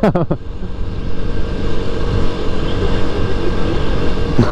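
Motorcycle engine running at a steady cruising speed, its pitch holding level, with wind rumbling over the microphone.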